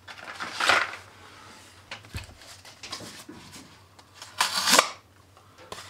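A freshly sharpened kitchen knife drawn against a sheet of paper in a sharpness test: two rustling swishes of blade on paper, the second louder, with light paper handling between. The blade does not cut cleanly through, a sign that the edge is still not fully sharp.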